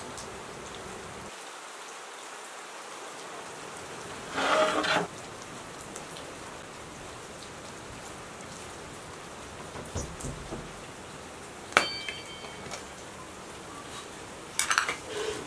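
Cookware being handled over a steady hiss: a loud scraping clatter as the large sadj pan is handled, then a sharp clink with a short ring as the pot lid is handled, and more clatter near the end.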